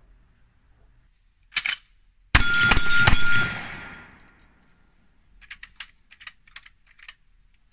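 Winchester 1873 lever-action rifle firing black powder cartridges in a triple tap: three rapid shots about 0.4 s apart, with a long echoing tail, preceded by one sharp snap. After the shots come a few seconds of light metallic clicks as the rifle is handled.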